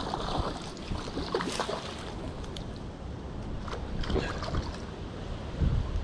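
Wind rumbling on the microphone, with a hooked pike splashing at the water's surface and scattered clicks and rustles from the angler's handling.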